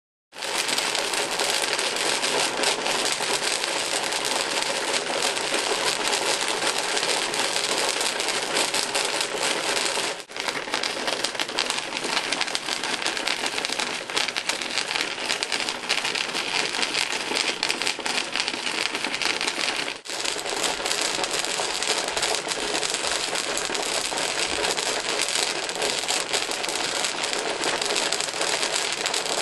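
Rotary rock tumbler running, rocks and tumbling media clattering continuously inside its turning barrel. The clatter drops out for a moment twice, about ten and twenty seconds in.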